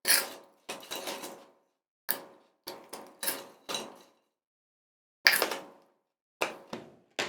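Microwave-puffed pork rinds being bitten and chewed: a string of short, sharp crunches at an irregular pace, with a pause of about a second midway.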